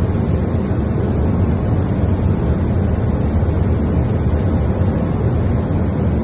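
Steady rushing noise of airflow and engines inside an Airbus A220 cockpit on final approach, heaviest in the low end.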